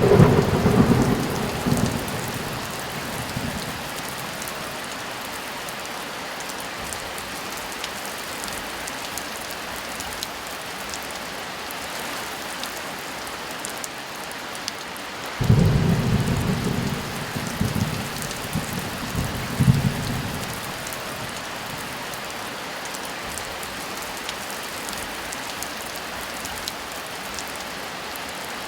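Steady heavy rain with two rolls of thunder: one breaks right at the start and rumbles for about three seconds, the other comes about halfway through and rumbles for about five seconds with a second swell near its end.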